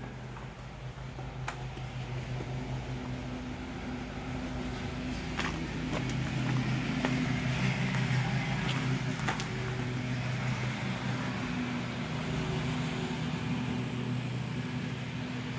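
Outdoor air-conditioning condenser unit running with a steady hum, growing louder toward the middle as it comes close.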